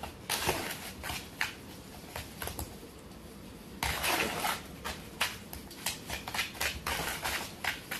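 A spoon stirring and scraping wet plaster mix in a plastic tub: irregular scrapes and knocks against the tub's sides, with a longer run of steady scraping about four seconds in.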